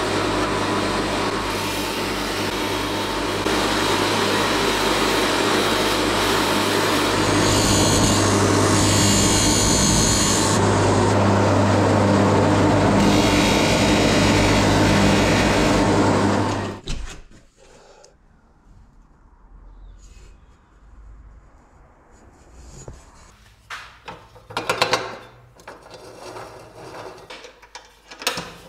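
Electric power tool running under load, abrading metal with a steady motor hum under a harsh scraping noise. It stops about seventeen seconds in, and a few light clicks and knocks follow.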